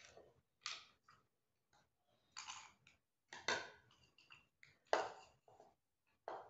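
A spoon scooping crunchy snack mix of Kurkure, chips and peanuts from a bowl into a small bowl: a string of short, faint crackly scrapes and clinks.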